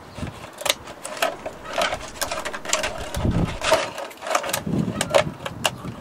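Scissors snipping through the thin plastic of a milk bottle: a quick run of short crisp cuts, about two or three a second.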